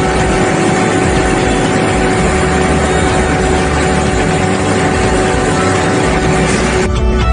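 A machine running steadily, an even whirring noise with a constant hum in it, that cuts off suddenly near the end.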